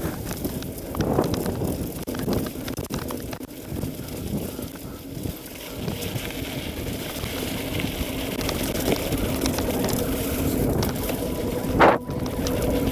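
Mountain bike ridden fast down a dirt singletrack: wind buffeting the microphone over the rumble of knobby tyres on the trail, with a brief louder noise near the end.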